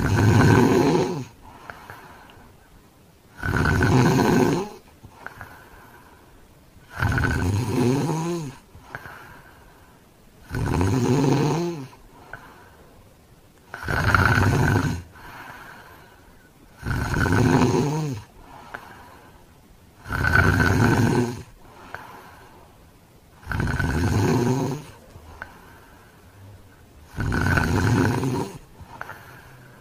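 A man snoring heavily and loudly in sleep, about nine snores, one roughly every three and a half seconds, with quieter breathing between.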